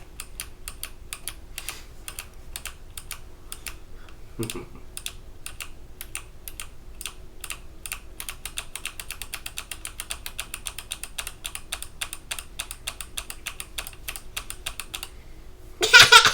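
Keys being pressed on a Hexgears Supernova mechanical keyboard by a small child. The presses come in an uneven patter at first, then as a fast, even run of taps, about five or six a second, from about halfway through. A loud burst of laughter breaks in just before the end.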